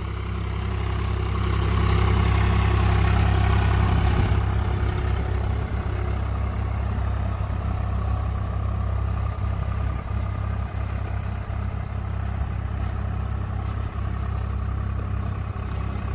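A Swaraj 843 XM tractor's three-cylinder diesel engine runs steadily under load, pulling a cultivator through the soil in high first gear and two-wheel drive. It is loudest a couple of seconds in, then a little fainter as the tractor moves away.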